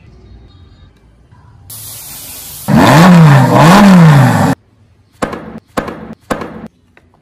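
Car engine sound revved twice, pitch climbing and dropping each time, over a hiss, followed by three short sharp knocks.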